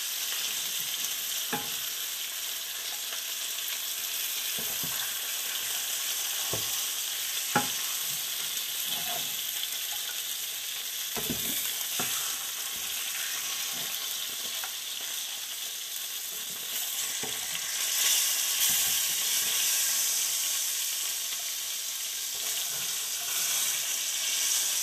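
Climbing perch frying in hot mustard oil in a pan, a steady sizzling hiss that swells somewhat about two-thirds of the way through. Now and then a slotted spatula knocks against the pan as the fried fish are lifted out.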